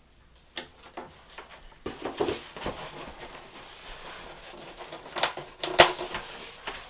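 Cardboard shipping box being handled and its flaps pulled open: scattered rustles, scrapes and knocks of cardboard, with a sharp snap near the end.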